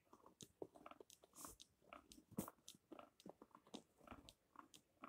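Faint, irregular clicks and taps of fingers shifting small cardboard Bakugan core cards on a tabletop.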